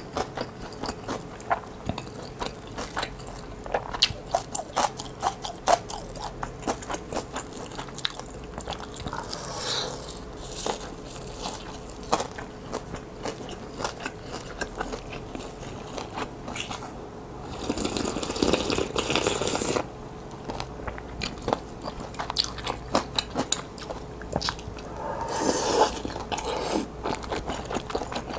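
Close-miked chewing of kimbap and spicy ramen: a steady run of short wet clicks and crunches as food is bitten and chewed. Twice, about two-thirds of the way in and again near the end, there is a longer, louder stretch of slurping.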